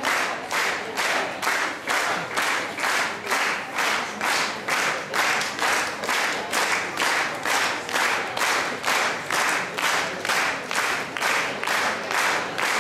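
A crowd clapping in unison to a steady beat, about two and a half claps a second.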